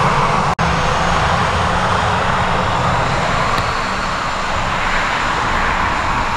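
Airbus A320-214's twin CFM56-5B turbofan engines running at taxi power as the airliner turns at the runway end: a steady, loud jet hiss and rumble. The sound cuts out for an instant about half a second in.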